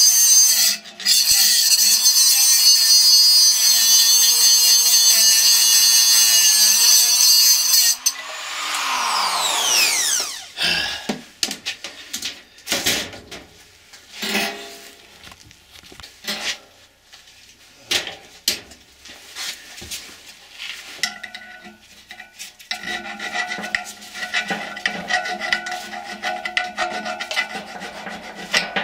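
Cutoff tool grinding through a steel motor shaft with a loud, steady high-pitched screech, then its motor winding down with a falling pitch about eight seconds in. Scattered clinks and knocks of handling follow, and near the end a steady run of rubbing strokes on the cut end of the shaft as the burr is cleaned off.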